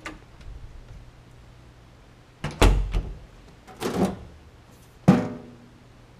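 A few knocks and clunks of doors being handled, then a sharp clank with a short metallic ring about five seconds in as the steel cover of an electrical breaker panel is swung open.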